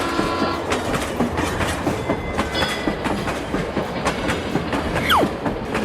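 Train wheels clacking over the rails in a quick, uneven run of clicks. About five seconds in, a whistle-like tone falls steeply in pitch.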